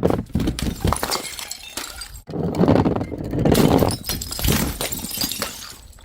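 Glass bottles knocking and clattering down hard steps and breaking, in two bursts of rapid impacts and shattering.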